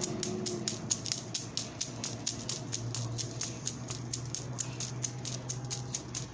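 A clock ticking evenly and quickly, about four ticks a second, over a faint steady low hum.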